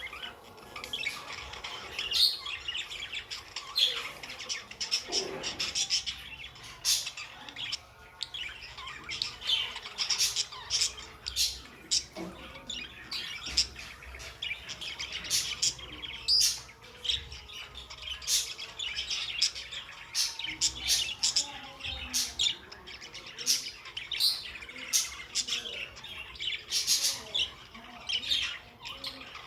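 Pet budgies calling: a continuous, irregular stream of short, high chirps.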